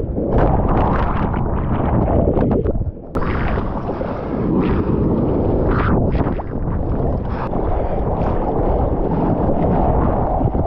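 Sea water rushing and splashing around a GoPro held at the water's surface, with wind buffeting the microphone. A short drop in level comes about three seconds in.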